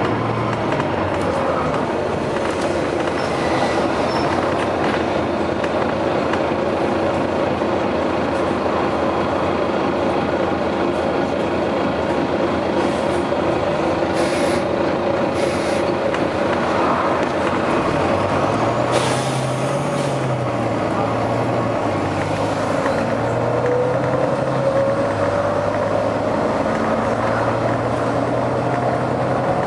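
Volvo B9TL double-decker bus heard from on board, its engine running under load with the pitch falling and rising through the gears and climbing again near the end. Short bursts of air hiss from the bus's air system come three times around the middle.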